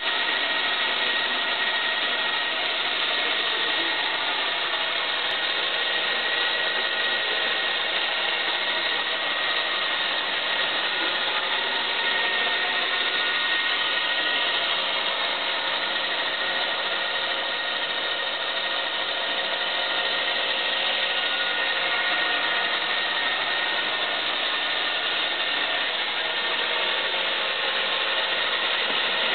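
Alloy Sky King remote-control toy helicopter running: its small electric motors give a steady whine over the rush of air from the spinning rotor blades, unchanging throughout.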